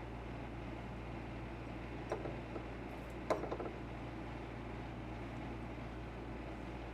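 Steady low background hum, with two brief light knocks about two and three seconds in.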